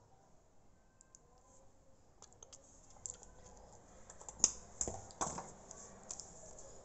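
Light clicks and taps of small makeup items being handled, scattered and faint, with the loudest a sharp click about four and a half seconds in.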